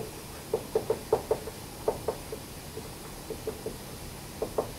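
Marker tapping and scratching on a whiteboard in a string of short, irregular ticks as a word is written.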